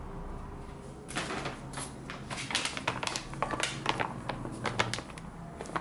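Sticky scalded-flour dough (tangzhong) being stirred and pulled with a silicone spatula in a glass bowl. It makes a rapid, irregular run of sticky clicks and smacks, starting about a second in.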